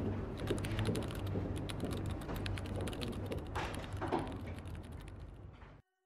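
Rapid, irregular mechanical clicking, like keys or a ratcheting mechanism, over a steady low hum. It fades and stops near the end.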